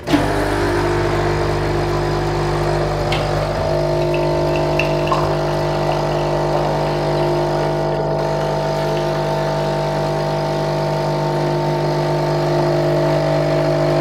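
KRUPS Nescafé Dolce Gusto Oblo capsule machine's pump running, a steady, even drone that starts suddenly, as the machine pushes hot water through a cappuccino milk pod and dispenses frothy milk into a glass.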